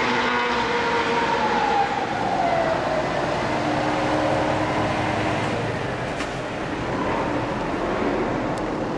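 Heavy diesel trucks passing close by, a tractor unit pulling a long low-loader trailer and then a flatbed truck: engine drone and tyre noise, with a whine that falls in pitch in the first few seconds as they go by. Lighter car traffic follows.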